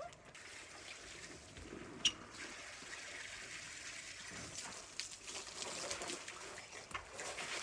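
Water running from a garden hose, splashing onto and filling an inflatable splash-pad sprinkler mat: a steady hiss. A sharp click about two seconds in stands out above it.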